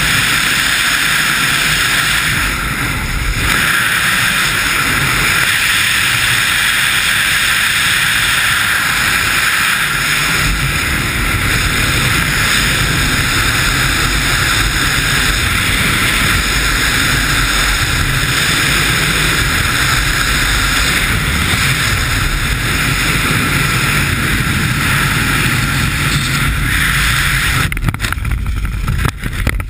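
Loud, steady rush of freefall wind over the flyer's camera microphone during a wingsuit flight. Near the end the rush breaks up and drops away as the flyer pitches up, consistent with the parachute opening.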